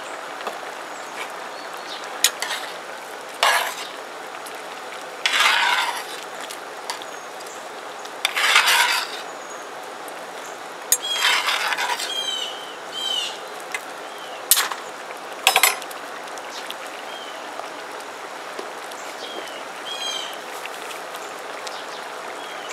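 A spoon stirring rice, corn and stock in a cast-iron pot, in several scraping strokes of about a second each, with two sharp knocks on the pot about two thirds of the way through, over a steady background hiss.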